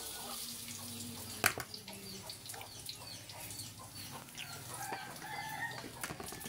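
Banana fritters frying in a little oil in a wok, with short clucking calls throughout and a sharp click about a second and a half in.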